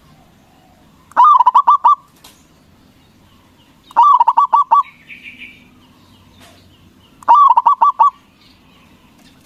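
Zebra dove (perkutut) singing: three short phrases a few seconds apart, each a quick run of about five or six staccato cooing notes.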